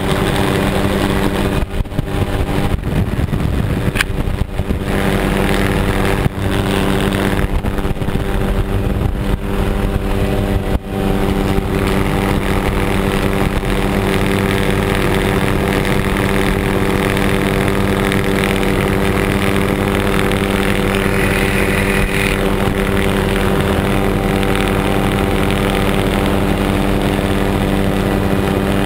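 Helicopter engine and rotor running steadily in flight: a loud drone of several steady tones under rushing wind on the microphone, with a few brief dips in the sound in the first eleven seconds or so.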